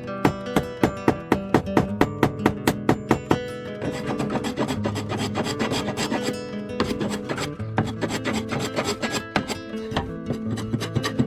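Acoustic guitar music, plucked and strummed in an even rhythm. The playing grows denser for a few seconds near the middle.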